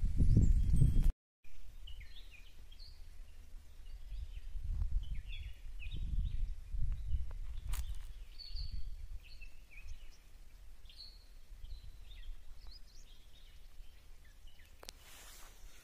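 Small birds chirping in short, scattered calls over a low, uneven rumble on the microphone that swells loudest in the first second and again mid-way; the sound cuts out completely for a moment just after a second in.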